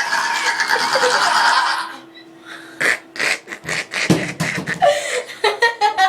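A girl's long, loud burp that cuts off about two seconds in, followed by bursts of giggling and laughter.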